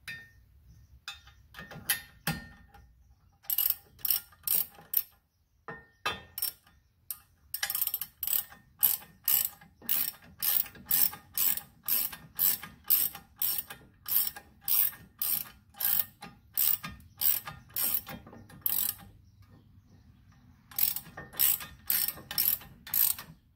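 Socket ratchet wrench clicking with each back-stroke of the handle, about two strokes a second, as it turns a bolt in. It pauses briefly near the end, then starts again.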